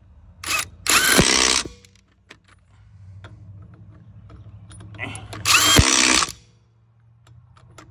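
Cordless 1/2-inch impact wrench firing in short bursts while running lug nuts back onto a truck wheel: a brief blip, a longer burst about a second in, and another near six seconds, each with the motor's whine rising as it spins up.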